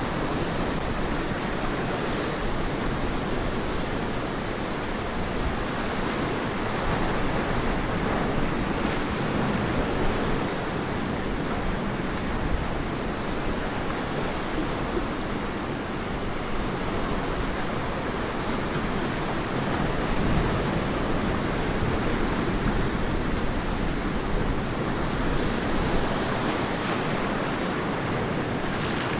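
Ocean surf washing onto a beach in a steady wash of noise, with gentle swells in loudness, and wind on the microphone.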